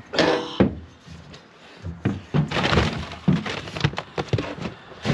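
Knocks, clunks and scuffs of rubber boots climbing into and moving about on a bare aluminium vehicle body, with a loud rasping burst at the start and sharp knocks scattered through.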